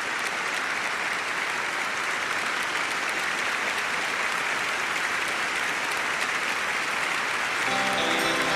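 A large studio audience applauding in a steady wash of clapping. Near the end, music with held chords comes in under the applause.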